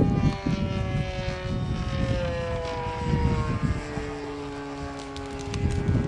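Radio-controlled model airplane flying overhead, its motor and propeller giving a steady buzzing note that slowly falls in pitch as it passes. A second, lower steady tone joins about four seconds in, over a low rumble of wind on the microphone.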